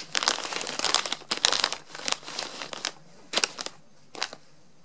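Plastic snack pouch rustling as it is handled and turned over in the hand: a dense run of rustles for about three seconds, then a few short separate crinkles near the end.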